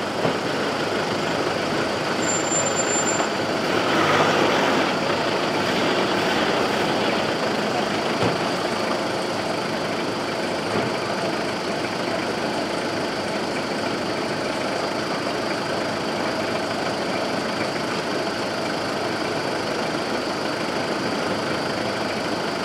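Steady engine drone with a faint high whine held throughout, swelling briefly about four seconds in.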